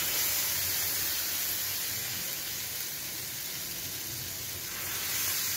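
Thin, watery ragi rava dosa batter sizzling as it is poured in a circle onto a hot tawa. The hiss starts suddenly, eases off slowly and swells slightly near the end; the batter sets at once into a lacy, holed layer, a sign that the pan is hot enough for a crisp dosa.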